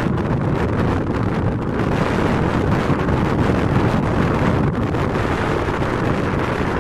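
Wind buffeting the microphone on a moving boat, a steady, dense rumbling noise that flutters without a break.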